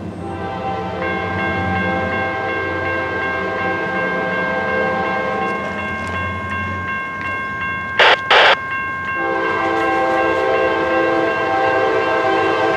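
Railroad crossing signal activating: its General Signals Type 1 electronic bell starts ringing as the warning lights flash and the gates come down. About eight seconds in, two short, very loud blasts cut through the bell.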